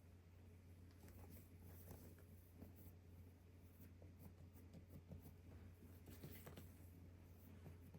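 Near silence: faint scattered scraping and light tapping sounds over a steady low hum.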